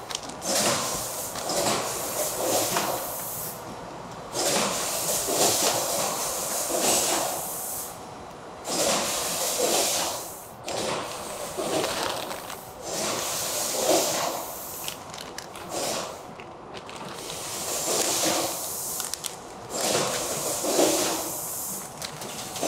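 Vacuum-sealed plastic pouches crinkling and rustling as they are handled and dropped into a plastic crate, in irregular bursts every second or two.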